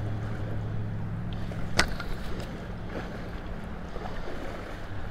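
A hooked salmon splashing and thrashing at the surface of a shallow river, over a steady low rumble of wind and flowing water. A single sharp click a little under two seconds in is the loudest sound.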